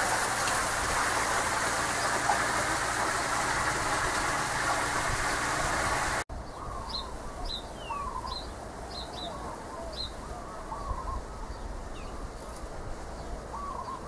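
A steady, loud rushing hiss that stops abruptly at a cut about six seconds in. After it, quieter outdoor ambience with small birds chirping repeatedly in short, high calls.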